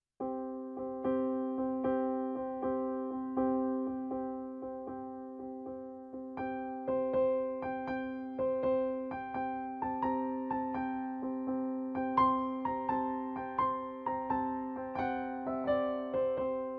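Background music: a calm keyboard tune of evenly struck notes over held low tones, beginning suddenly just after the start.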